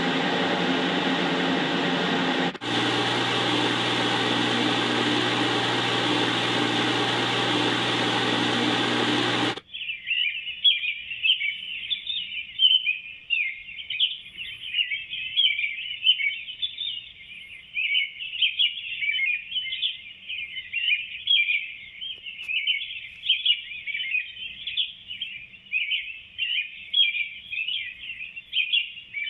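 Steady whirring hum of an extractor fan, changing briefly to a slightly different hum about two and a half seconds in, then cutting off suddenly about ten seconds in. It is followed by continuous, dense high chirping.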